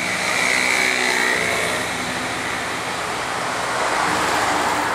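Road traffic passing: a steady rush of vehicles with the noise swelling about a second in and again near the end as vehicles go by.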